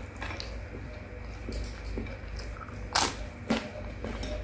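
Eating sounds: noodles being chewed, with a metal fork clicking against a plate. About three seconds in come two sharp clicks half a second apart, the first the loudest.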